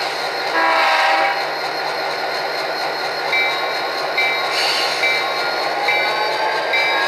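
Sound-equipped HO-scale GP39-2 diesel model playing its Tsunami 2 decoder sounds through its small onboard speaker. The engine runs steadily, the horn gives a short blast about half a second in, and the bell rings from about three seconds in, about once a second. Near the end the engine sound rises in pitch as the locomotive starts to move.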